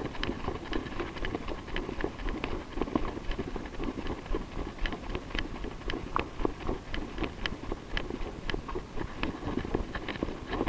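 Footsteps on a dusty, debris-strewn concrete floor: quick, uneven steps with sharp scuffs and clicks.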